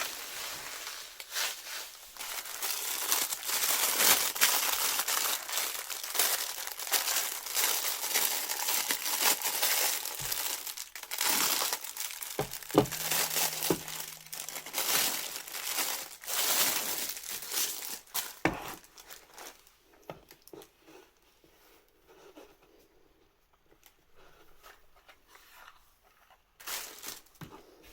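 Plastic packaging crinkling and tearing as a parcel is unwrapped, in dense irregular rustles that grow sparse and quieter after about twenty seconds.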